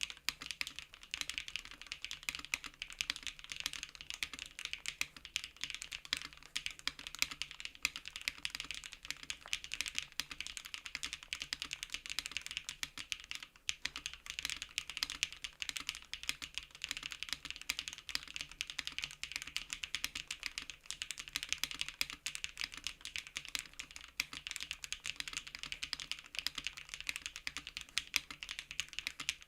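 Fast continuous typing on a custom 65% mechanical keyboard (JRIS65 R2) with HMX Canglan V2 linear switches: a dense stream of keystroke clacks, with a brief pause about halfway through.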